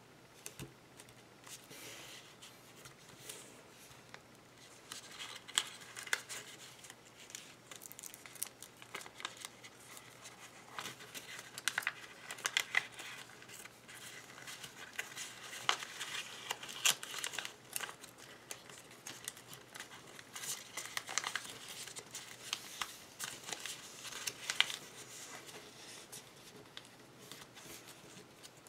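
Origami paper being folded and creased by hand: irregular crinkling and rustling with sharp little crackles as the folds are pressed flat.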